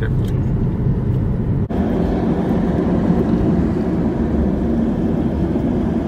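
Steady low rumble of road and engine noise heard inside a moving car's cabin.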